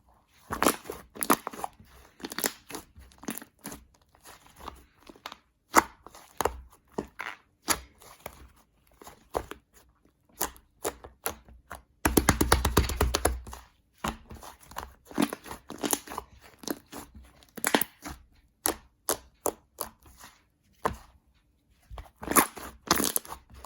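Shaving-foam slime being squished and pressed by hand, giving irregular crackling pops and clicks. About halfway through there is a dense two-second run of rapid pops.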